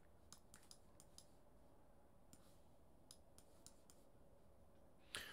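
Near silence with faint, irregular clicks of a computer mouse.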